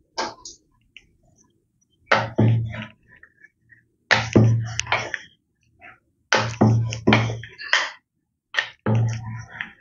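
Wooden rolling pin rolling out flatbread (paratha) dough on a round steel rolling board standing on legs: several back-and-forth bouts with short pauses, starting about two seconds in.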